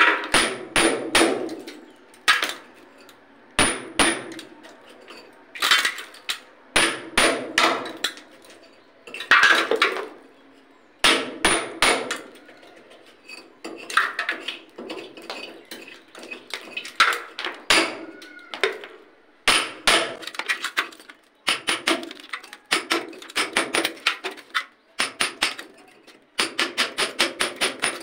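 Hammer striking a chisel against brick, cutting a channel in a brick wall for electrical wiring: sharp blows in short groups with pauses between, then a faster, steady run of blows near the end.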